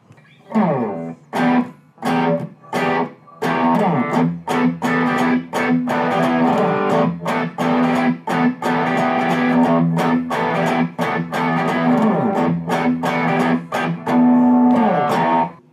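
Solid-body electric guitar with a Mastery bridge and tremolo, freshly set up and restrung, played through an amp: a busy run of strummed chords and picked notes with sustained chords between them. A couple of notes slide down in pitch, one just after the start and one about twelve seconds in.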